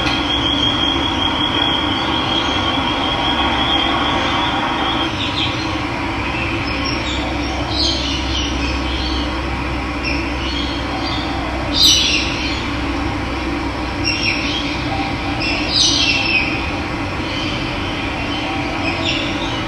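Steady rush of running water with birds calling over it: a thin wavering trill for the first five seconds or so, then short chirps now and then, the loudest about twelve seconds in.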